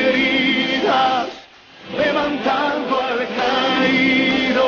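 A group of voices singing a Spanish-language worship song over music. The phrases break off briefly about a second and a half in, then carry on.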